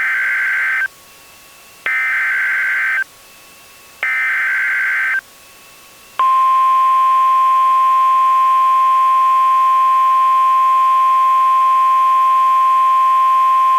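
Emergency Alert System SAME header: three short bursts of digital data tones about two seconds apart, followed about six seconds in by the NOAA Weather Radio warning alarm, one loud steady tone held for about eight seconds. Together they signal the start of a severe thunderstorm warning alert.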